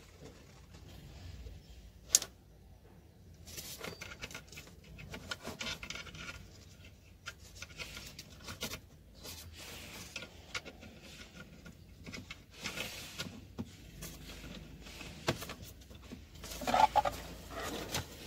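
Handling noise of cables and plugs being fitted to the back of a digital TV set-top box: irregular rubbing and rustling against paper and plastic, with a sharp click about two seconds in and a few more clicks later.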